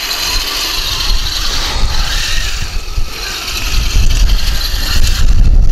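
Heng Long 1:16 Tiger 1 RC tank running: whirring and clattering of its gear and track mechanism, mixed with its built-in tank sound effects. The sound gets louder in the last two seconds or so.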